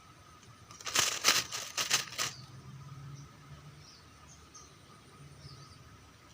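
A quick run of flapping, rustling strokes lasting about a second and a half, loud against a background of faint bird chirps.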